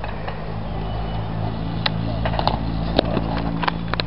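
A steady low drone, with a run of sharp knocks and clicks over the last two seconds from a BMX bike riding concrete skatepark ramps.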